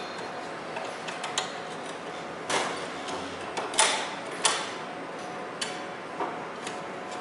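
Irregular sharp metal knocks and clicks as a steel H-frame shop press and a hand truck are handled and strapped together, about half a dozen hits spread out over a steady low background.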